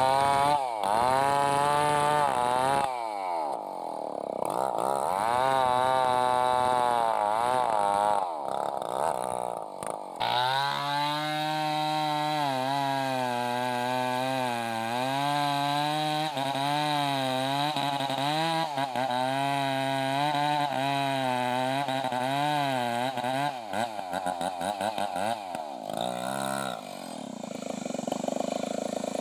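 Two-stroke chainsaw cutting into a large log, its engine pitch rising and falling as the chain bites and frees in the wood. It runs more steadily under load after about ten seconds.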